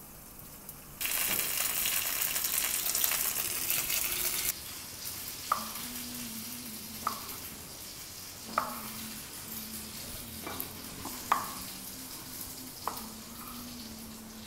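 Ravioli searing in hot olive oil in a skillet, a loud sizzle lasting about three and a half seconds that cuts off abruptly. It is followed by a chef's knife slicing cherry tomatoes on a wooden cutting board: about six sharp knocks of the blade on the board, roughly one every second and a half.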